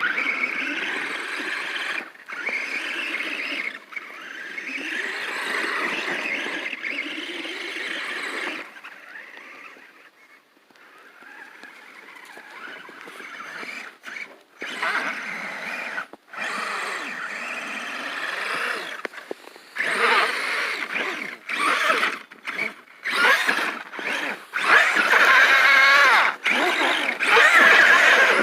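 Electric RC crawler trucks whining in stop-start bursts, the motor and gear pitch wavering as the throttle is worked, loudest near the end.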